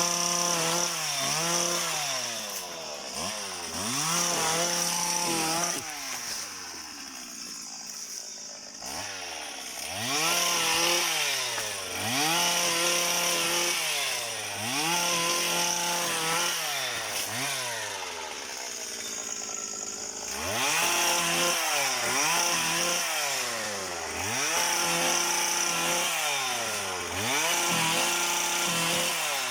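Small two-stroke engine of a motorised pole pruner revving up and falling back every second or two as it cuts oil palm fronds, with two lulls at lower revs, about seven and nineteen seconds in.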